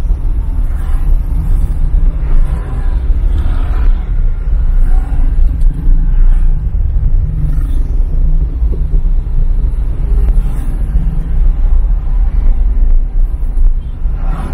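Steady low rumble of the car's engine and road noise heard from inside the cabin. The engines of motorcycles and motorcycle tricycles close alongside rise and fade over it.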